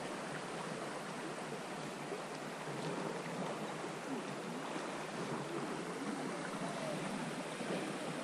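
Steady rushing and burbling of river water running over a shallow rocky riffle.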